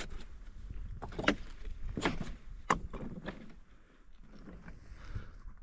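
Boots stepping over loose, broken rock: irregular crunching footsteps with sharp clinks of stone, over a low rumble. The steps fade out about four seconds in.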